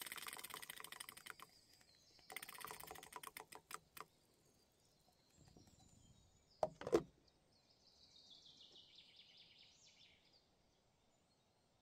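Ratcheting clicks of a hand coffee grinder fade out in the first second or so. Scattered light clicks follow, then two sharper knocks about seven seconds in, and later a faint falling high sound.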